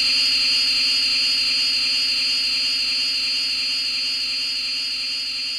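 Showa-era Mechagodzilla film sound effect: a steady electronic machine hum with a high, rapidly wavering tone over a lower drone, slowly fading.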